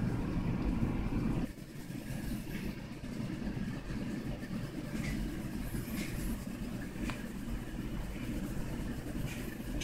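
A steady low, engine-like rumble, easing a little about a second and a half in. Over it come a few faint light ticks and scratching of a colored pencil on paper.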